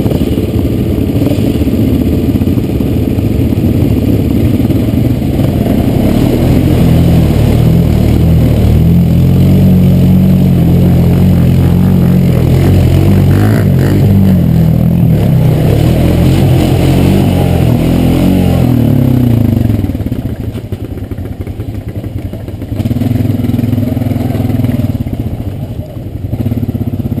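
ATV engine pulling steadily under throttle as the quad drives through a flooded stream, then dropping in pitch and easing off about two-thirds of the way through and running more quietly.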